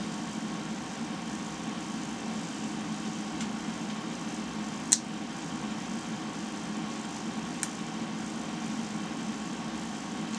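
A small metal hook working the sealing ball out of a plastic ink cartridge's fill port, making a few sharp clicks, the loudest about five seconds in. A steady low room hum runs underneath.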